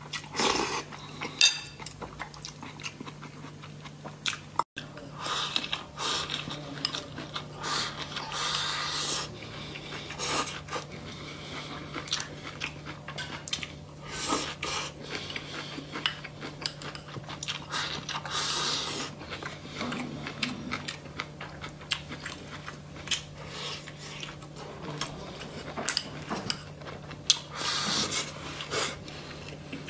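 A person eating close to the microphone: chewing and biting, with sharp clicks of chopsticks and spoon on bowls, and a few longer slurps of noodles or soup, one near the end. A faint steady low hum lies underneath.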